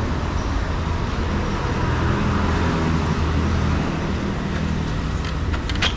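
Street traffic: a steady rumble of motor vehicles with engines running. A few short clicks come near the end.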